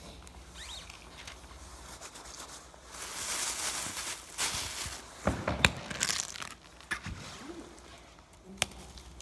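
Thin clear plastic bag rustling and crinkling as it is handled, louder from about three seconds in, with a run of sharp crackles and knocks in the middle.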